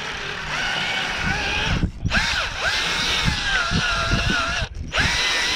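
Drill spinning a wire wheel brush against the rusty steel frame of an old Ferguson potato ridger, stripping surface rust with a scratchy whine. The motor cuts out twice briefly and rises in pitch each time it spins back up.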